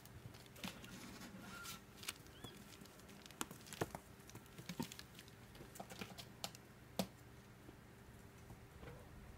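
Soft, scattered pattering and scratching of kittens' small paws and claws scrabbling over carpet and cloth, with a few sharper clicks, the loudest about seven seconds in.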